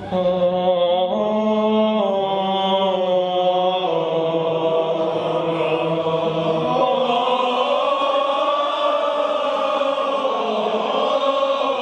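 A young man singing held notes on his own, then about four seconds in a crowd of voices joins him in group singing.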